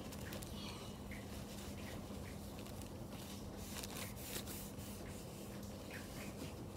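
Faint rubbing and scraping of hands handling things on a table, with a few small clicks, over a steady low hum.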